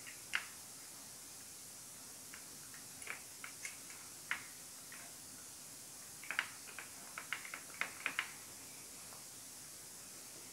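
Light clicks and taps of metal parts and hand tools as a timing chain tensioner is fitted to a VW 1.4 TSI engine. The clicks come singly at first, then in a quicker cluster a little past the middle, over a faint steady hiss.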